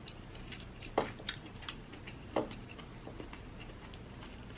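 Close-up eating sounds: chewing with scattered wet mouth clicks and smacks, the loudest about a second in and about two and a half seconds in.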